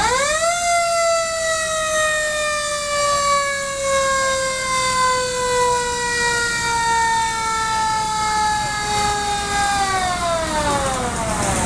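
Fire apparatus mechanical siren winding up sharply, then holding one tone that sags slowly in pitch for about ten seconds before winding down and stopping near the end. Steady noise runs underneath.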